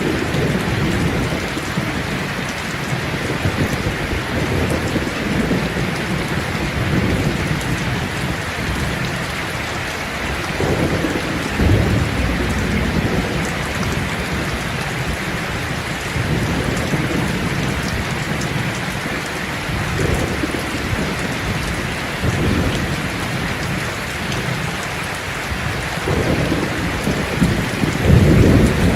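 Steady heavy rain falling, with low rolls of thunder rumbling under it every few seconds, the strongest near the end.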